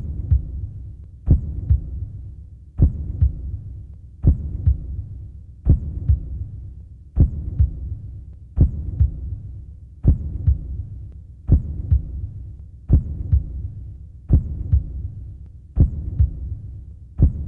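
A slow heartbeat sound effect: a deep double thump, lub-dub, about every second and a half, with a low hum fading away between beats.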